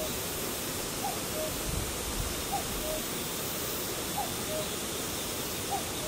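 Common cuckoo calling its two-note "cuck-oo", a higher falling note then a lower one, repeated about every second and a half, four times. Behind it runs a steady hiss of grass insects.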